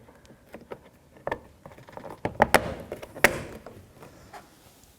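Plastic door trim piece being lined up and pressed onto its hooks and clips: a run of clicks and knocks with some rustling, the two loudest snaps about two and a half and three and a quarter seconds in.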